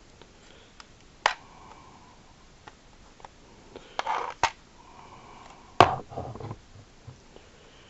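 Hard plastic toy starship, a Jazwares Micro Galaxy Squadron Inquisitor Transport Scythe, being handled: a few sharp plastic clicks and knocks as its folding wing is moved, the loudest about six seconds in.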